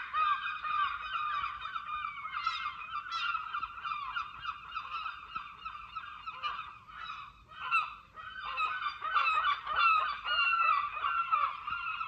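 A crowd of seagulls calling on and on, many harsh cries and squeals overlapping into a constant din, as in their breeding season.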